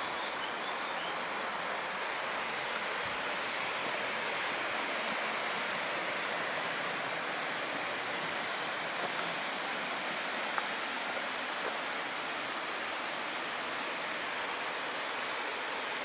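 Steady rush of falling water, an even hiss that does not let up.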